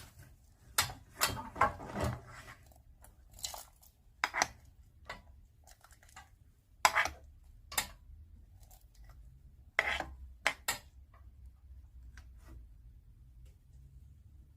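Kitchen utensils and dishes clinking and knocking in irregular bursts, a cluster of quick knocks early on and a few single sharp clinks after.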